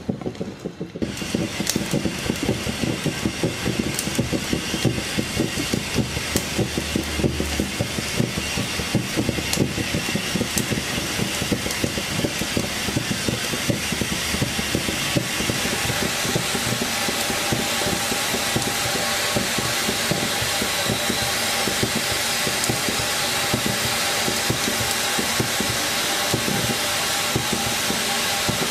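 Wilesco D24 toy steam engine running: a fast, even clatter of the cylinder and flywheel that starts about a second in, with a steam hiss that grows stronger about halfway through.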